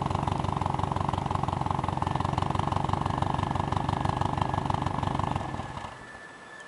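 Subaru Impreza WRX STI S202's 2.0-litre turbocharged flat-four idling steadily, heard at the exhaust tailpipe. The engine is switched off near the end, leaving only a faint steady high tone.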